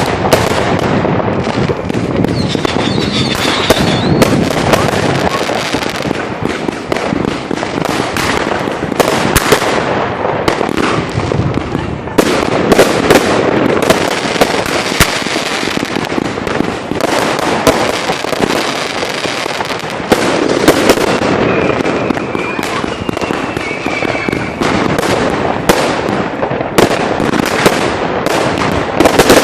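Fireworks going off without pause: a dense barrage of bangs and crackling from rockets and firecrackers, with a faint whistle twice.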